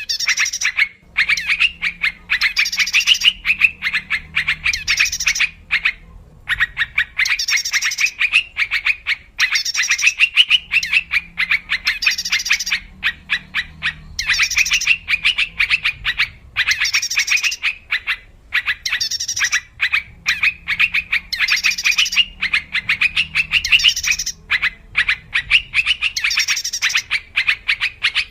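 Yellow-vented bulbul (trucukan) calling in quick, bubbly chattering phrases that repeat every second or two: a lure call used to attract wild birds of its kind.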